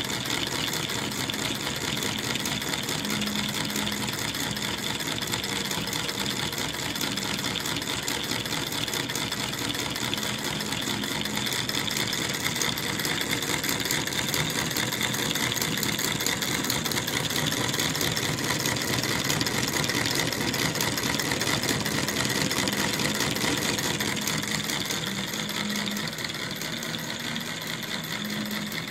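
Model Stirling engine running fast after a repair, its flywheel and linkages making a steady, rapid mechanical clatter.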